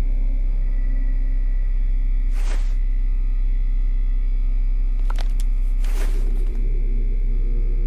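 Dark ambient soundtrack drone: a steady, very deep hum with faint held tones above it, crossed by soft whooshes about two and a half seconds in and again about six seconds in.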